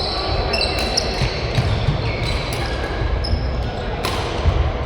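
Badminton play on an indoor court: sports shoes squeaking on the court floor in many short high squeaks, with a few sharp hits, the clearest about four seconds in, over the hall's background noise.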